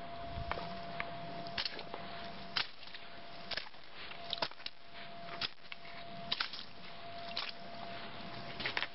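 Footsteps crunching on a gravelly, muddy forest track, short irregular crunches about once a second, over a steady hiss and a faint steady hum.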